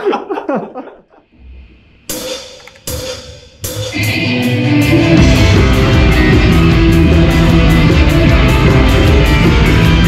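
Rock band with drums and electric guitars: three loud drum-and-cymbal hits about a second apart, then the full band comes in playing loud and steady, with cymbals keeping the beat.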